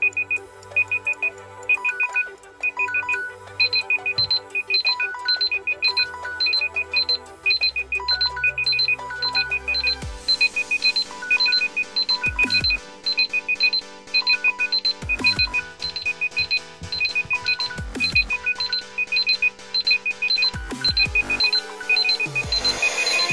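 Several smartphones' timer and alarm tones sounding at once, their alarms due to time running out: repeated triple electronic beeps, joined by a second higher beep pattern and layered ringtone melodies. From about halfway a low buzz comes every two to three seconds, and near the end another ringtone joins in.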